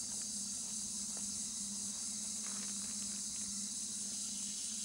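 Steady high-pitched insect chorus, like crickets, with a low steady hum underneath.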